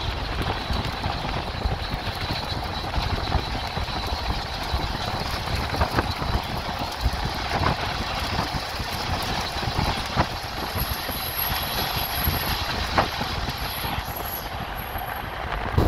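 A train rolling past, a steady low rumble with a few sharp clanks about two seconds apart.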